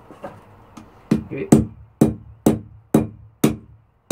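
Hammer blows on a punch driving through a hot steel bar over the anvil's hole to pierce it. Two light taps are followed, from about a second in, by six heavy blows at about two a second, each ringing briefly with a metallic tone.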